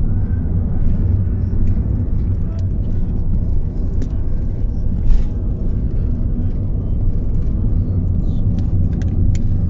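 Steady low road and engine rumble inside a moving car's cabin on a highway, with a few faint clicks.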